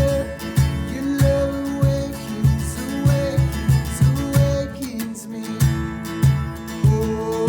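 Music with guitar over a steady beat, a bit under two beats a second, and a sustained melody line on top.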